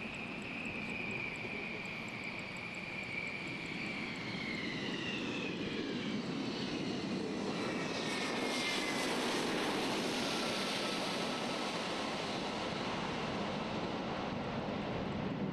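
Tu-22M3 bomber's twin turbofan jet engines whining and rushing as it comes in to land and rolls along the runway. A high whine slowly falls in pitch over the first few seconds, and the jet rush grows louder around the middle.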